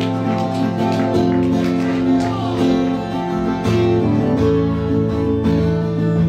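Twelve-string acoustic guitar strumming ringing chords as a song's introduction, changing chord about three and a half seconds in.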